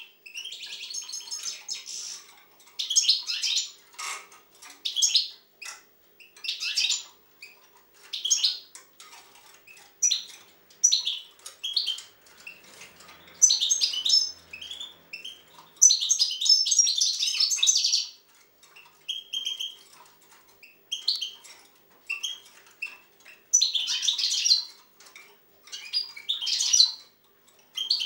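European goldfinch singing: a string of short, rapid phrases with brief pauses between them.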